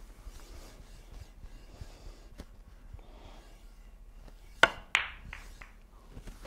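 Snooker shot: a sharp click of the cue tip striking the cue ball, then about a third of a second later a second click as the cue ball hits the pink, with a couple of faint ball knocks after.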